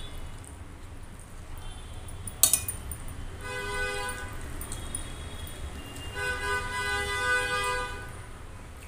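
A horn sounds twice in steady, unwavering tones: once for about a second, then again for about two seconds. A sharp click comes just before the first.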